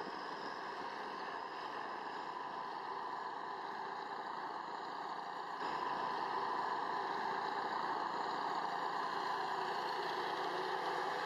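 Heavy vehicle engine running steadily, the sound jumping abruptly louder about halfway through.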